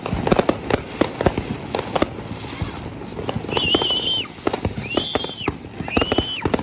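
Fireworks and firecrackers going off in quick, irregular pops and bangs. From about halfway there are four high, steady whistles, each about half a second long, that drop in pitch as they end.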